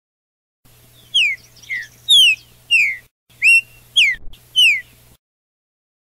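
A songbird singing a series of about seven clear whistled notes, each sliding down in pitch, roughly two a second.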